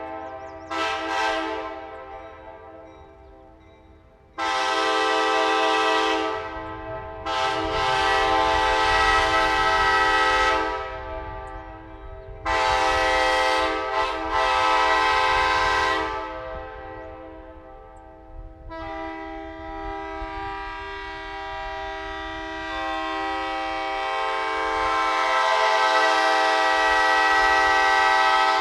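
Nathan AirChime K5LA five-chime air horn on an Amtrak AEM-7 electric locomotive, blown as a steady chord. It gives two short toots, then three long blasts of two to four seconds each. A final long blast begins about two-thirds of the way through, grows louder and holds on. Each blast is followed by echoes dying away.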